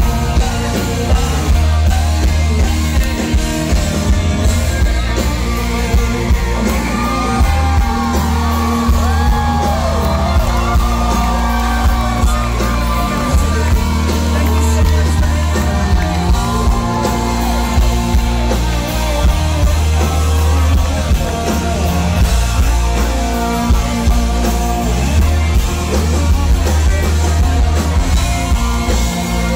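Live country-rock band playing loud through a concert PA: a male lead singer over electric guitars, bass and drums, with heavy, steady bass.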